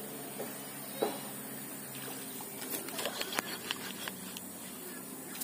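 Baitcasting rod and reel being handled: a single tap about a second in, then a cluster of light clicks and ticks about halfway through, over a faint steady hum.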